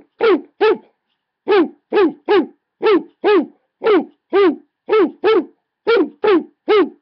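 A dog barking over and over: deep, short woofs that each drop in pitch, about two a second in uneven runs.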